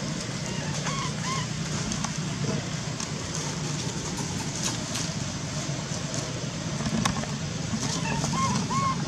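Steady low background hum and hiss, with a few short squeaky calls that rise and fall in pitch, about a second in and again near the end.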